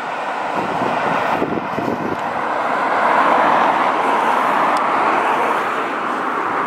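A passing vehicle: a steady noise that swells to a peak about three seconds in and then eases off slightly.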